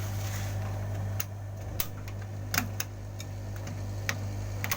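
A handful of irregular sharp clicks and taps over a steady low hum.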